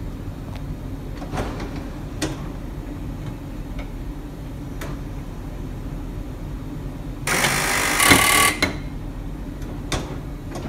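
Baltimore Transit Co. air-electric PCC streetcar No. 7407 running along the track, heard from the operator's cab: a steady low rumble with a few sharp clicks. Past the middle there is a loud burst of noise lasting about a second.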